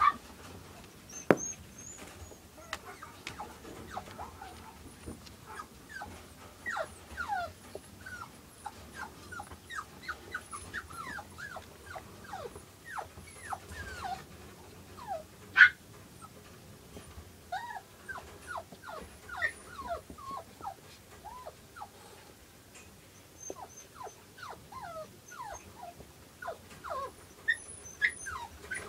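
Newborn toy poodle puppies, about two days old, squeaking and whimpering: many short, high, falling squeaks, with a sharp knock about a second in and one louder cry about halfway.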